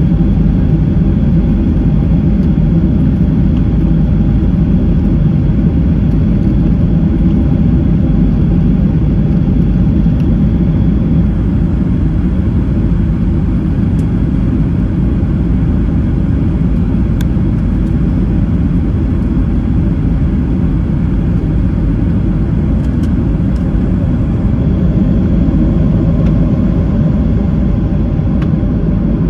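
Steady low rumble of an airliner's jet engines and airflow heard inside the passenger cabin, even throughout with a few faint clicks.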